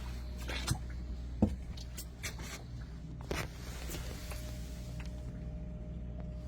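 A steady low hum with scattered knocks and taps over it, the loudest knock about one and a half seconds in.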